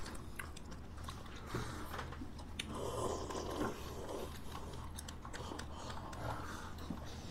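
Close-up eating sounds of melted ice cream: small clicks of wooden spoons against paper tubs, lip smacks, and sipping as the melted ice cream is drunk straight from the tub.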